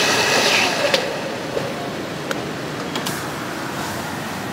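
Electric blender motor running on a fruit shake, switched off about a second in with a sharp click. Then a quieter steady background with a few light clicks and knocks from the glass jar being handled.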